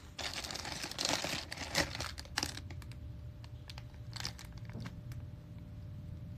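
Crinkling and rustling of something being handled, with a few sharp clicks. It is loudest for the first two and a half seconds, then goes on more quietly with scattered ticks.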